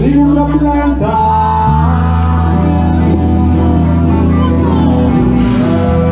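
Live rock band playing loudly, with a strong bass line under electric guitars and drums.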